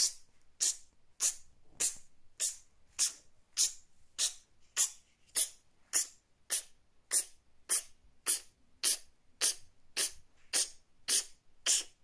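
Beatboxed hi-hat: a short, sharp "ts" hiss made through closed teeth with the mouth slightly open, repeated as a steady beat a little under twice a second, about twenty times.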